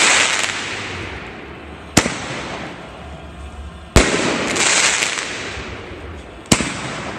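A Winda 10-shot 500-gram firework cake with 2-inch tubes firing: three sharp bangs about two seconds apart, each followed by a hiss that fades.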